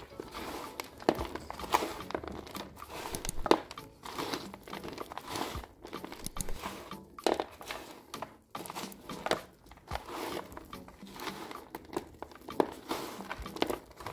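Gloved hands stirring and turning garden soil mixed with a coarse orchid substrate of pine bark, charcoal and coconut fibre in a plastic tray. The result is an irregular crunching and rustling, dotted with sharp clicks from the bark chips, charcoal pieces and small stones.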